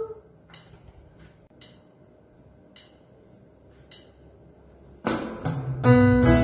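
A quiet pause with a few faint clicks, then about five seconds in, the instrumental accompaniment to a children's praise song starts suddenly, with sustained chords over a bass line.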